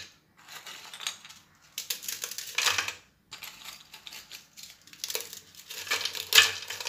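Crisp sablé biscuits being snapped into pieces by hand and dropped into a plastic blender jar. The crunching comes in several separate bursts with short gaps between them.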